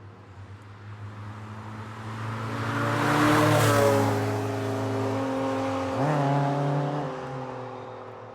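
Porsche 911 (997) flat-six engine accelerating. It grows louder to a peak a few seconds in and eases slightly, then picks up again with a sudden rise in pitch about six seconds in, before fading away.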